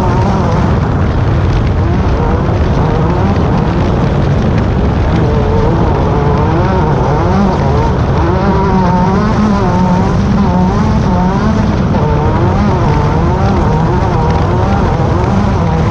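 Class 10 off-road race car's engine running hard, its pitch rising and falling constantly over a loud, steady rumble.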